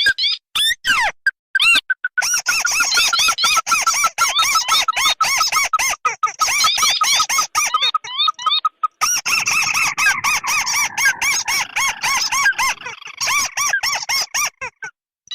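Lure recording of crake calls, tikusan merah (ruddy-breasted crake) combined with tikusan putih: fast runs of short, squeaky arched notes, several a second, choppy with brief dropouts. About nine seconds in the calling changes to a denser mix of notes.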